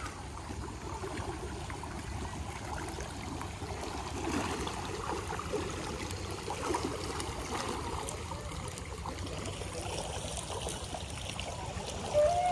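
Floodwater flowing, a steady rushing and trickling with small gurgles. Near the end a steady pitched tone starts up suddenly and is louder than the water.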